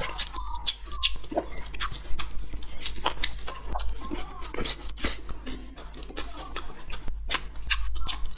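Close-miked eating sounds: chewing, wet mouth clicks and lip smacks, coming irregularly several times a second.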